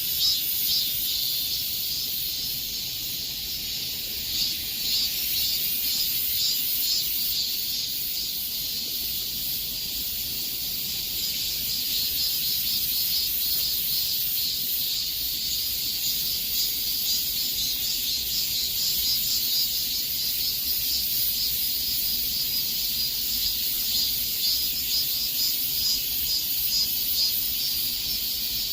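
Cicadas chorusing in summer: a dense, steady, high-pitched buzz with a fast pulsing texture.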